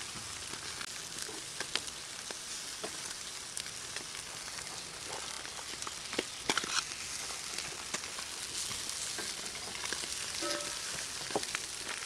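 Fish sizzling on a charcoal grill grate, with a few sharp clicks of metal tongs on the grate and fish as the cooked fish are turned and lifted off.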